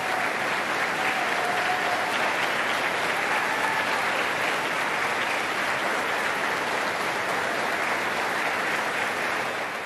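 A theatre audience applauding steadily for the performers and composer on stage.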